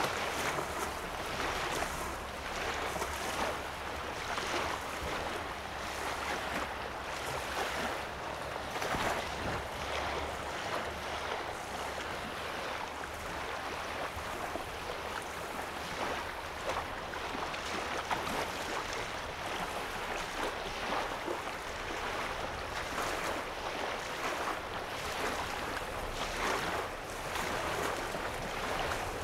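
Small waves lapping on a sandy lake shore: a continuous wash of water, swelling irregularly with each small splash.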